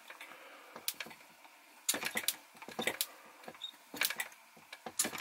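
Sharp, light clicks, single or in small groups about once a second, as the flywheel of an Enjomor model hit-and-miss engine is turned over by hand during an ignition test, the removed spark plug sparking across its gap.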